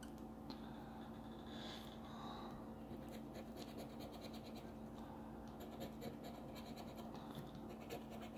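A coin scratching the coating off a scratch-off lottery ticket: faint, quick back-and-forth scraping strokes, sparse at first and becoming steady and rapid after about three seconds.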